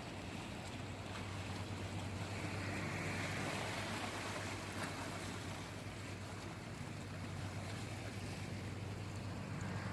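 Sea waves washing in, swelling louder about two to four seconds in, over a steady low hum.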